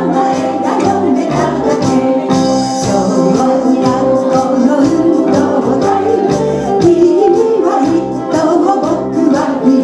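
Live band music with singers at microphones: drum kit keeping a steady beat under sustained chords, with a cymbal crash about two and a half seconds in.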